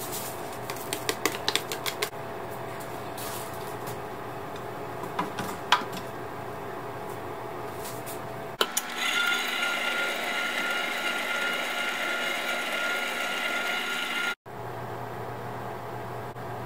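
Electric stand mixer's motor running with a steady whine, driving a wire whisk through dry ingredients in a glass bowl. The whine starts a little after halfway and cuts off suddenly near the end; before it there are a few light clicks and taps.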